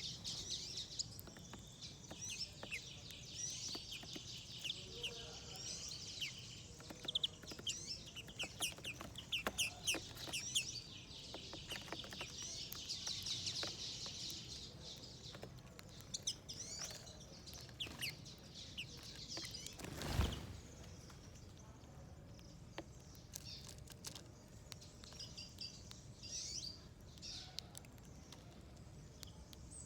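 Small wild birds at a feeder chirping and twittering in quick, overlapping calls, with buzzy trills in the first half. A single dull thump sounds about two-thirds of the way through.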